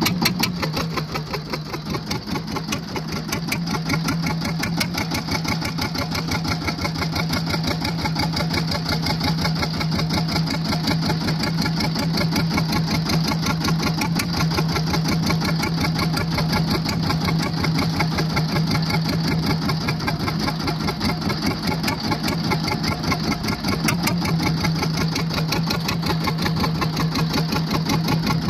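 A fishing boat's inboard engine running steadily at low speed, a fast, even chugging with a constant low hum.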